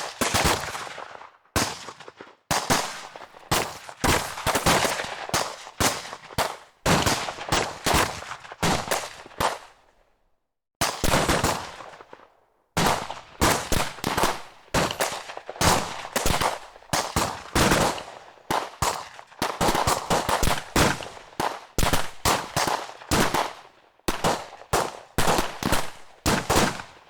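Gun battle sound effect: bursts of automatic gunfire mixed with single shots, in rapid volleys separated by brief pauses.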